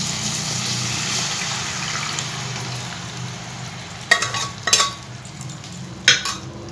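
Cooked dal poured into a hot kadhai of tomato-onion masala, sizzling and splashing, the hiss fading over the first three seconds. Then a few sharp clacks of kitchenware against the pan.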